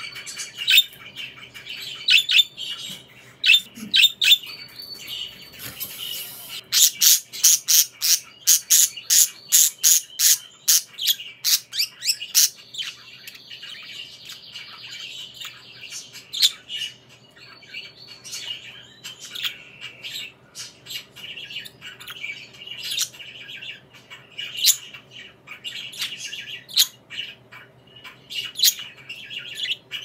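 Budgerigars chirping and warbling, a running chatter of short, sharp chirps, with a fast burst of loud chirps, several a second, from about six to twelve seconds in.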